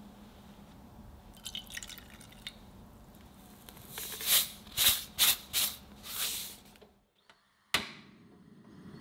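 Water and milk poured into a saucepan onto cubes of butter: a run of five splashing pours, about halfway through. Near the end comes one sharp click of a gas stove igniter.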